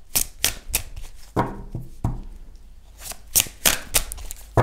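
A deck of tarot cards being shuffled by hand: irregular crisp card snaps and slaps, coming quicker and closer together near the end.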